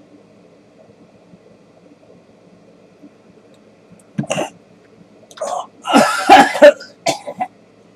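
A man coughing and clearing his throat after swallowing apple cider vinegar, in four short bursts that start about four seconds in, the loudest and longest about six seconds in.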